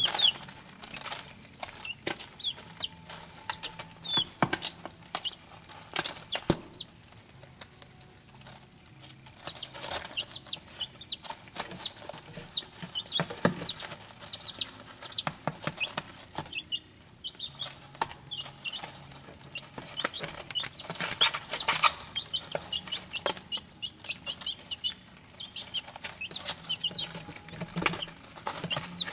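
Barred Rock chicks peeping in short high notes, scattered through the whole stretch, while they scratch, peck and flutter in wood shavings, with frequent light rustling and tapping.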